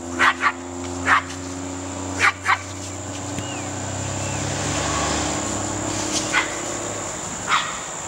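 A dog barking in short, sharp barks, about seven in all: a quick run in the first few seconds, then two more after a gap of a few seconds. A faint steady high tone runs underneath.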